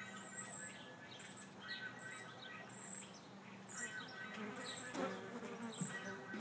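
Yellowjacket wings buzzing in a low, steady hum as the wasps feed on a chunk of chicken and fly off. Short high chirps repeat about twice a second.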